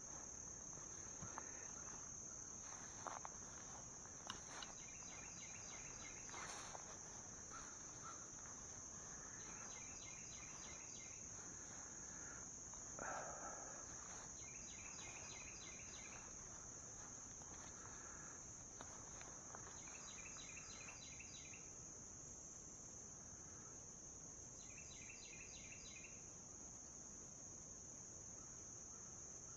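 Insects calling: a steady high-pitched trill, with a short pulsed chirping call repeating about every five seconds. A few footsteps and rustles in the first half.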